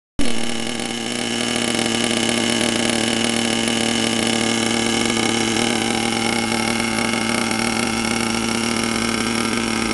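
HPI Savage nitro RC truck's small glow-fuel engine idling steadily at an even pitch.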